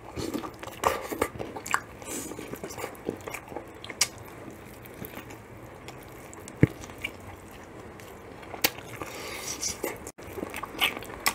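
A person biting and chewing crispy, gravy-dipped fried chicken: irregular sharp crunches of the breaded skin with chewing between them.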